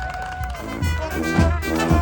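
Street brass band playing: a few sliding notes, then about half a second in the full horn section comes in loud over a pounding bass drum, in a swinging jazz style.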